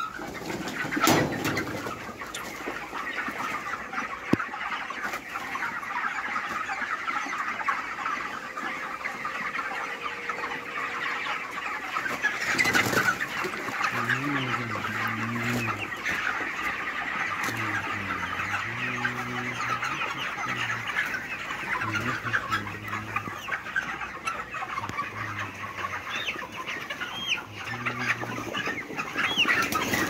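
A large flock of day-28 broiler chickens calling continuously, a dense chatter of many overlapping cheeps and clucks. A single thump about a second in.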